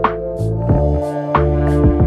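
Background instrumental music with sustained chords and a steady, evenly spaced beat.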